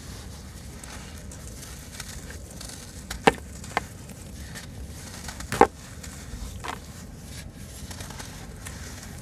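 Soft, crumbly sand-cement chunks crushed and broken apart by hand, with wet crumbs dropping back into a shallow basin of water: a steady gritty crumbling broken by four sharp crunches, the loudest a little past halfway.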